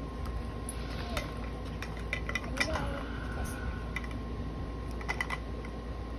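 Small plastic capsule pieces being handled, with scattered light clicks and taps.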